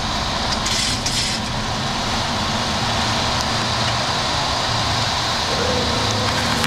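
Steady flight-deck noise of a Boeing 737-700 in its initial climb just after gear-up: its CFM56 turbofans at takeoff thrust and the rush of air over the nose, with a brief rise in hiss about a second in.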